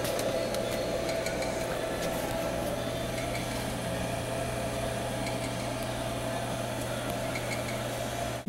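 Steady machine hum in a workshop: an even low drone with a fainter higher whine and a few light ticks. It cuts off just before the end.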